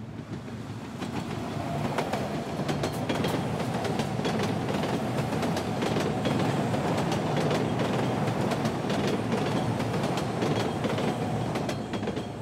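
A train rumbling and clattering, with many sharp irregular clacks over the rumble. It builds over the first couple of seconds, holds steady, and fades near the end.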